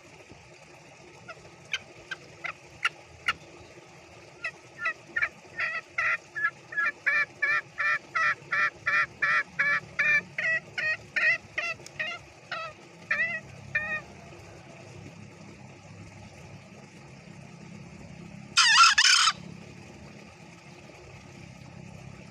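Green junglefowl cock giving its rapid 'ngekek' cackle. A few single notes build into a quick run of sharp notes, about two or three a second, for some ten seconds. It is the call the bird uses to reach other junglefowl. Near the end comes one short, loud call.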